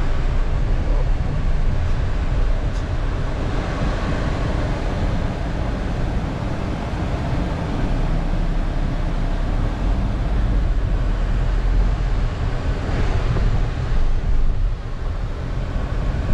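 Cabin noise inside a moving Skoda Slavia with its three-cylinder 1.0 litre turbo petrol engine: a steady low rumble of engine and tyres on the road, with an even rush of air over it.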